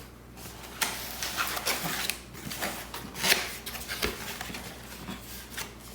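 Packaging rustling and crinkling as a box of accessories is opened and handled, with irregular clicks and light knocks and one sharper knock about three seconds in.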